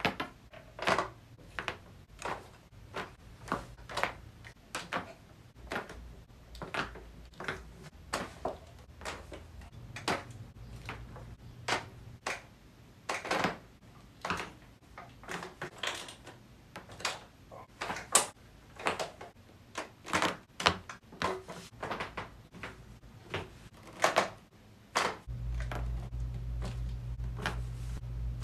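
Back joints cracking and popping during chiropractic adjustments: a long series of sharp, separate cracks, about one or two a second and sometimes in quick clusters.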